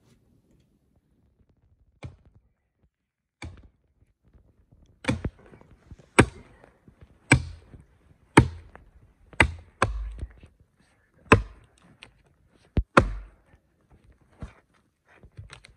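An axe chopping into a small standing tree trunk: sharp, evenly spaced blows, about one a second, with lighter knocks near the end.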